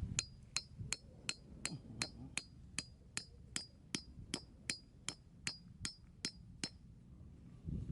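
A steady series of sharp metallic ticks at an even pace, about three a second, each with a brief high ring; they stop about a second before the end.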